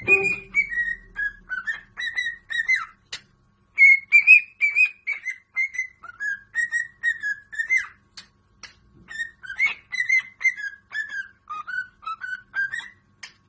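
A pet parrot whistling a long run of short chirping notes, about two or three a second, with brief pauses about three seconds in and again around eight seconds in.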